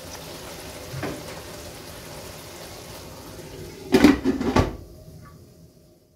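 Glass pan lid set down on a wide pan of simmering curry, clattering briefly about four seconds in, over a faint steady simmering hiss from the pan. There is a light knock about a second in.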